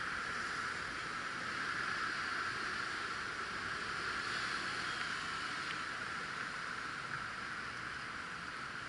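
Steady, even hiss of background street noise with no distinct vehicle or event standing out.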